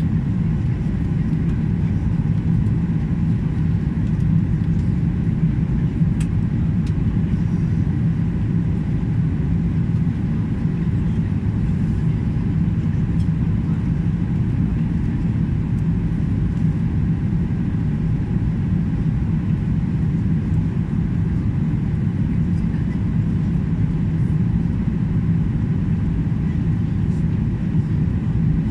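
Steady low drone of an airliner cabin in flight on descent: jet engine and airflow noise, even throughout with a constant low hum.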